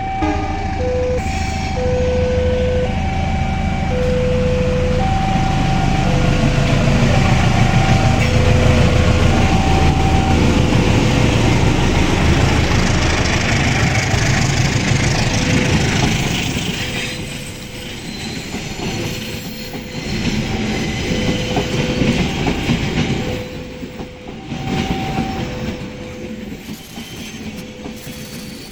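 Railway level-crossing alarm sounding a repeating two-tone chime while a diesel-hauled train passes over the crossing. The train's low engine rumble and wheel noise are loudest through the first half and die down after about 17 seconds, while the crossing chime keeps sounding.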